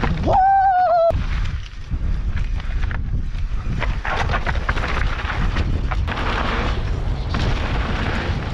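Mountain bike descending a rocky trail at speed: wind buffeting the mic and tyres rumbling and knocking over rock and gravel. Near the start a brief high-pitched tone rises, then holds and wavers for under a second.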